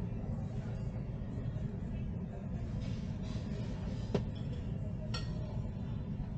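Airport terminal room tone heard from behind the glass: a steady low rumble, with a sharp click about four seconds in and a short ringing clink about a second later.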